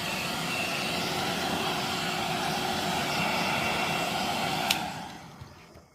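Hair dryer blowing steadily, heating the adhesive under a phone's back cover to bond it. A click comes near the end, and the blower then winds down.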